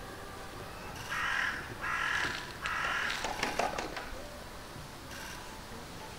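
A crow cawing three times, about a second apart, followed by a brief patch of sharp crackling clicks.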